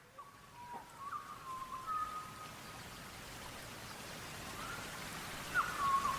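Tropical rain fading in from silence as a steady hiss that grows louder, with a few clear whistled notes over it, some held and some sliding.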